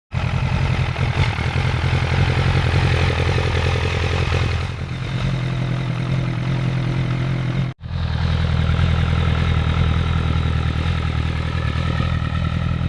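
Honda CB1000F inline-four motorcycle engine running steadily at idle, in two clips joined by a brief cut to silence about eight seconds in.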